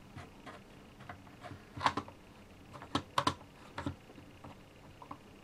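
Light metal clicks and clacks from a Ruger Mini-30's trigger group being pressed down into the receiver. The clicks are scattered and uneven, with a sharper one about two seconds in and a close pair about three seconds in.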